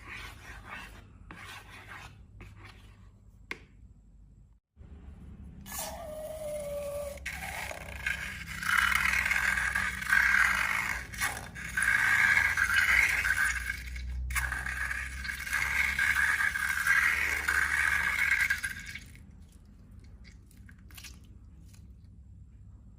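Soft clicks and rustles, then from about six seconds in a loud, continuous scraping and rubbing with a squeaky edge that stops a few seconds before the end.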